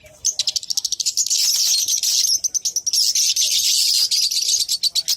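Many small caged birds chirping rapidly together in a dense, high twittering. It starts about a third of a second in as fast repeated chirps and thickens into continuous chatter.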